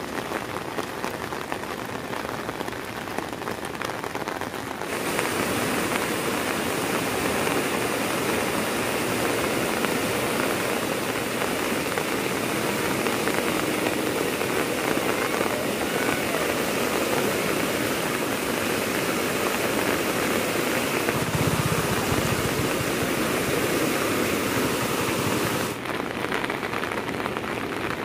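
Muddy floodwater in a swollen river rushing and churning, a steady loud rush of water. It sets in suddenly about five seconds in and drops back to a softer steady hiss near the end.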